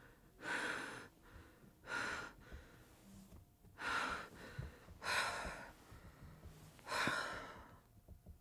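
A person breathing heavily, five audible breaths, each lasting under a second with a pause between.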